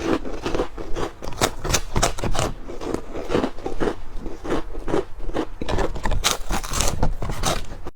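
Close-up crunching of crisp shrimp chips being bitten and chewed, a dense, irregular crackle several times a second.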